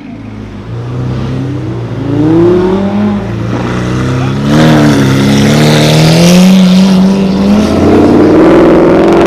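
Supercar engine revving hard, its pitch climbing and dropping several times.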